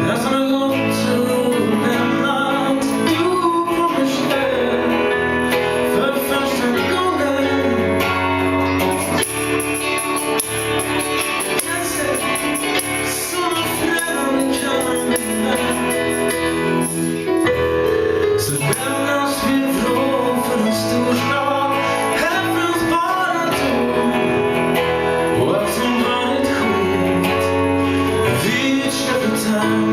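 A band playing a song live, with sung vocals over guitar-led accompaniment.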